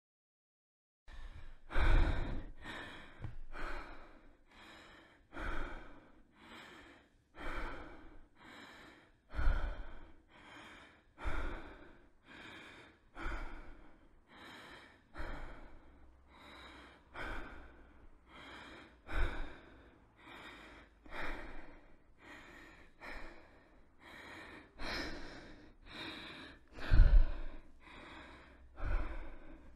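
A person breathing heavily and rhythmically close to the microphone, in and out about once a second, starting about a second in. Some breaths blow onto the mic with a low thud.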